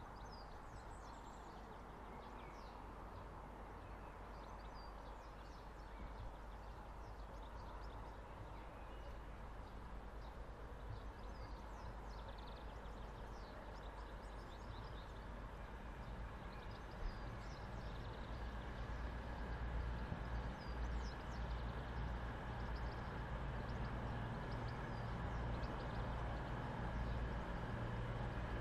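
A CrossCountry Voyager diesel multiple unit approaching slowly, its underfloor diesel engines a low hum that grows steadily louder, strongest in the last third. Birds chirp throughout.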